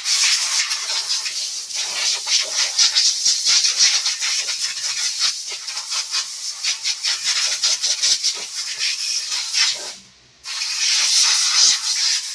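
Compressed-air blow gun blasting air onto freshly sanded parking-brake shoes to blow off the sanding dust: a loud, uneven, fluttering hiss that stops briefly about ten seconds in, then starts again.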